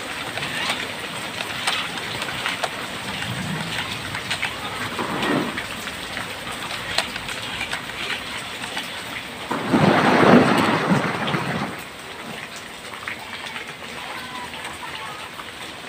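Heavy rain falling steadily on puddles and wet ground, with a louder rushing swell lasting about two seconds midway.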